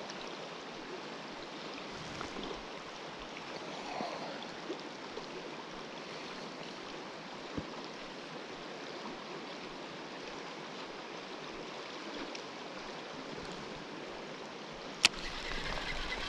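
Steady rush of a fast-flowing river running high over riffles. About fifteen seconds in there is a single sharp click, after which the sound grows a little louder and busier.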